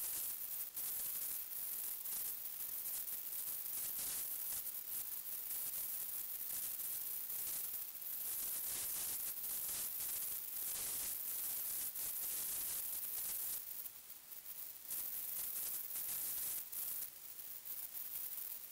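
Steady high hiss with uneven rustling crackle, the noise floor of a night-vision scope's built-in recorder. It dips briefly twice near the end.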